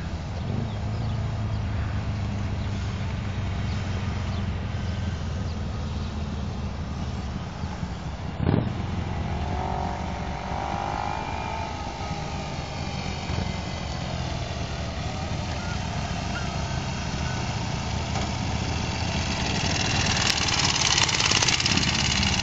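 Kawasaki Ninja 250's parallel-twin engine running as the motorcycle rides around, rising and falling in pitch as the throttle is worked, and growing louder near the end as the bike comes close. A short knock about eight seconds in.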